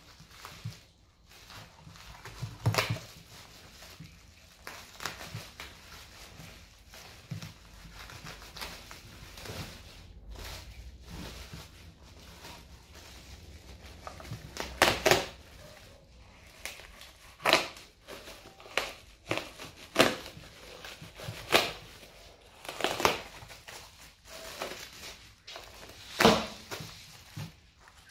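Bubble wrap crinkling and tearing as it is cut open with a knife and pulled away, with sharp crackles every few seconds.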